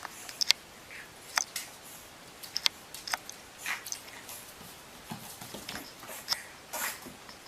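A pet chewing and crunching something hard, with irregular sharp crunches and clicks.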